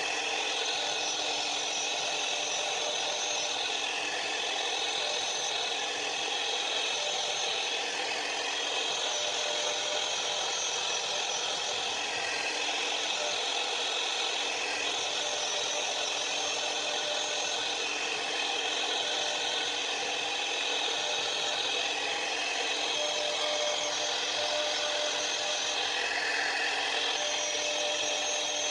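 CNC router spindle running steadily with a small end mill routing shapes out of a plywood sheet: a steady high whine over the grinding of the bit through the wood.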